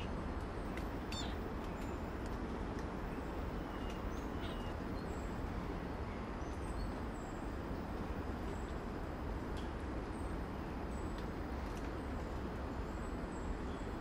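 Rainforest ambience: a steady low rushing background noise, with scattered faint, short high chirps of small birds and a few brief clicks.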